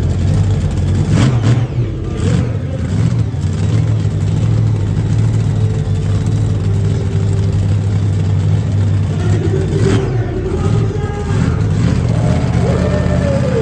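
Monster truck engine running loud and revving, with a few sharp bangs along the way.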